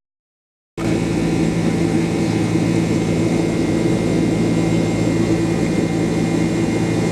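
Airliner cabin noise: a steady drone of jet engines and rushing air with constant humming tones, starting abruptly after a short dead-silent gap.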